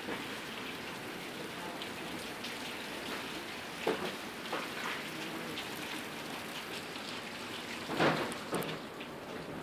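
Heavy rain falling steadily on pavement and cars. A few short, louder sudden hits break through, about four seconds in and again near the end, the loudest about eight seconds in.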